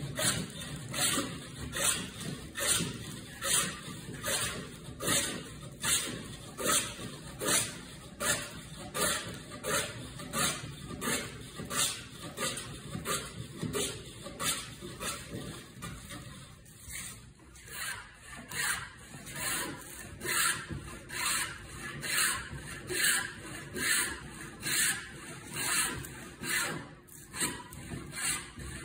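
Wooden-bodied fenced hand plane (sash fillister or plough type) cutting along the edge of a board, each push a short shaving stroke, in a steady rhythm of a little under one stroke a second. The strokes ease off briefly about two-thirds of the way through, then resume.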